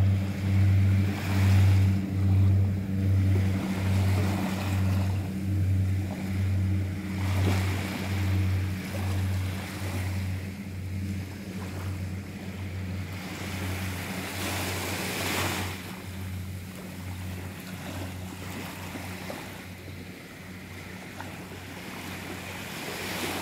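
Twin-engine turboprop floatplane (de Havilland Canada DHC-6 Twin Otter) climbing away just after takeoff from the water: a low propeller drone that throbs about once or twice a second and fades steadily as the aircraft recedes, with wind and surf hiss underneath.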